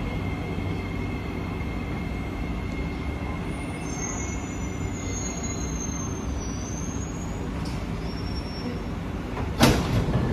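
Interior running noise of a Kawasaki C151B metro train slowing into a station: a steady rumble, with a high, wavering wheel squeal in the middle. A single sharp clunk comes near the end.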